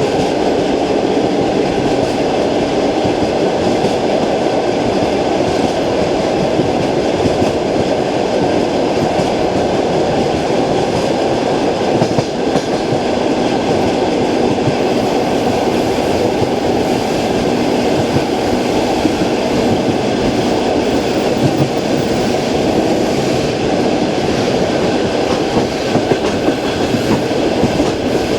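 Passenger train wheels clacking over the rail joints of jointed track at speed, heard from inside the carriage over a steady, loud running rumble.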